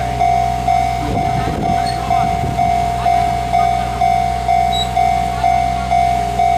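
Japanese railway level-crossing warning bell ringing, a single electronic clang repeated about twice a second.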